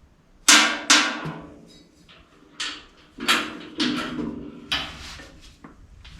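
Six or so loud, irregular metal knocks and clanks, each ringing briefly, the first two the loudest: a steel part being struck or banged into place while a stiff, fully extended rear shock absorber is forced into its mount.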